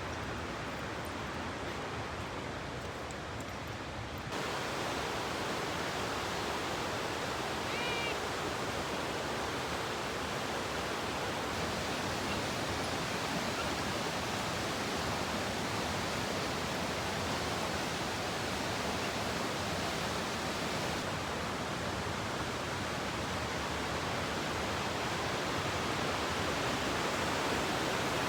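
Waterfall swollen with spring snowmelt runoff: a steady rush of falling water that gets louder about four seconds in.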